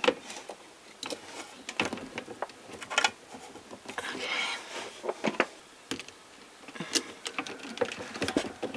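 Irregular small clicks, taps and rustling of hands fitting plastic water tubing and push-fit pipe connectors.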